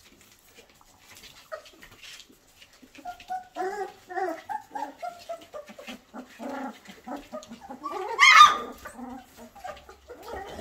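19-day-old Goldador puppies whimpering and squeaking in a rapid string of short pitched calls from about three seconds in. One louder, higher yelp comes at about eight seconds.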